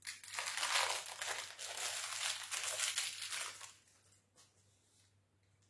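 Packaging crinkling and rustling as it is handled for about three and a half seconds, then a couple of faint clicks.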